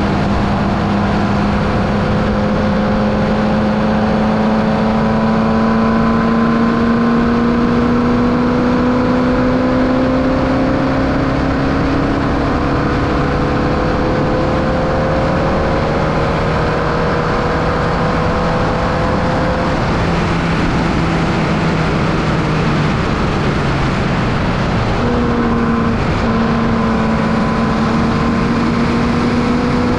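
Formula Vee race car's 1200cc air-cooled Volkswagen flat-four engine running under load, heard onboard over steady wind and road noise. Its note climbs slowly as the car pulls, and near the end there is a brief break after which the note comes back higher and climbs again.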